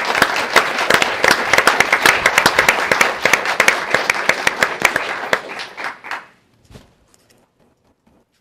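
Audience applauding, a dense crowd of claps that dies away about six seconds in, followed by a few last scattered claps.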